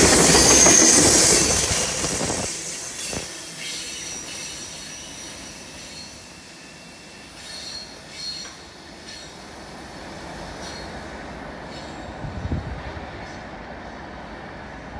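Freight train cars rolling past close by, with steel wheels rumbling on the rail and a high-pitched wheel squeal. About two seconds in, the noise drops sharply as the last car clears, and the train then fades into a low rumble as it pulls away.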